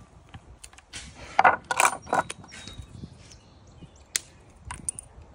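A wooden shim being split by a blade pressed into it: three or four cracking noises in quick succession about a second in, followed by a few small clicks near the end as the pieces are handled.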